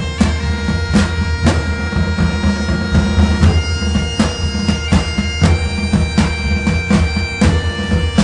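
Background music: a low drone and long held melody notes that change pitch every second or so, over a steady drum beat.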